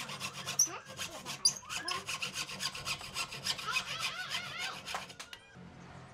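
Hacksaw cutting a thin strip of wood held in a bench vise, in quick, even back-and-forth strokes that stop about five seconds in.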